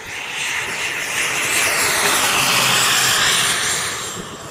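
Turbine-powered scale model Bell helicopter flying past: a steady turbine whine with rotor noise that swells to its loudest about three seconds in, then fades.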